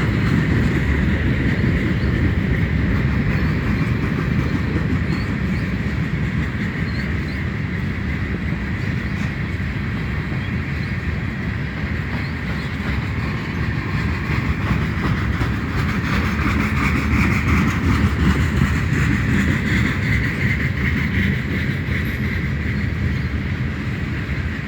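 Freight cars of a mixed freight train rolling past on the rails: a steady rumble of wheels on track, with a higher ringing hiss from the wheels that swells about two-thirds of the way through.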